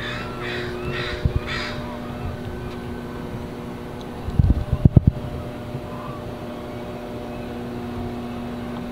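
A crow cawing four times in quick succession over a steady low hum, followed about halfway through by a short cluster of loud thumps.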